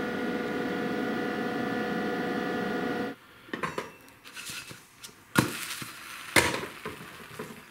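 A steady hum with a whine for about three seconds, which cuts off suddenly. Then a frying pan and its glass lid with a metal rim clink and knock several times as the lid is lifted off and the pan is handled on an electric hot plate.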